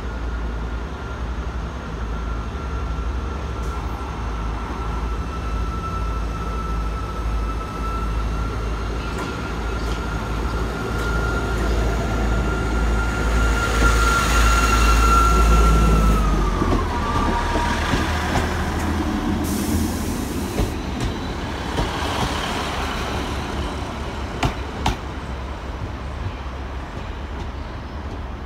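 Class 158 and Class 153 diesel multiple units pulling away under power. There is a low engine rumble and a steady whine, loudest as the units pass about fourteen to sixteen seconds in, when the whine drops in pitch. A few sharp wheel clicks follow near the end.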